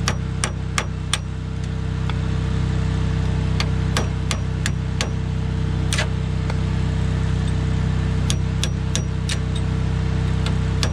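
Hammer striking a steel punch held against a conveyor shaft bearing, sharp metallic knocks in three quick runs of several blows each. A steady engine hum runs underneath.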